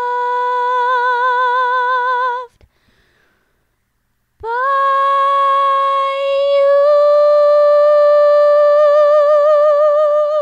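A woman's unaccompanied voice holds a long note with vibrato, breaks off for about two seconds, then holds a slightly higher note with vibrato that lifts a little partway through.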